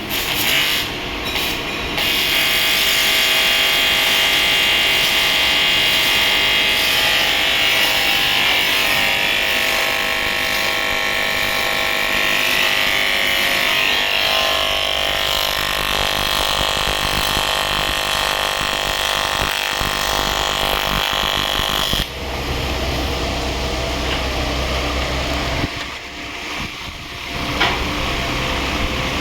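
AC TIG welding arc on aluminium, a steady buzz that runs for about twenty seconds and cuts off about 22 seconds in. A lower steady hum is left after it stops.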